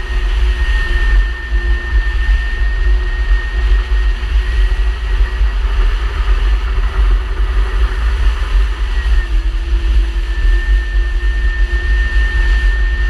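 Jet ski (personal watercraft) engine running steadily, with a steady high whine over a heavy low rumble.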